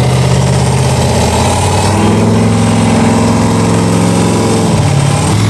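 Off-road race vehicle engine running steadily, its pitch stepping up about two seconds in and dipping briefly near the end.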